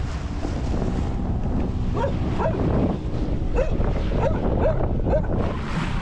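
A dog barking in short yelps over steady wind rumble on the microphone aboard a sailboat: a couple of barks about two seconds in, then a quick run of four or five barks.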